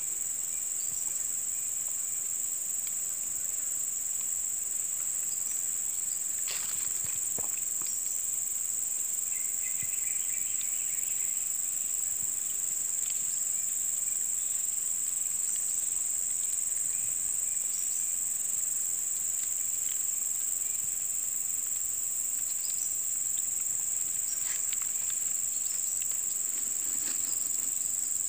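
Steady high-pitched chirring of insects, unbroken throughout, with a few faint ticks here and there.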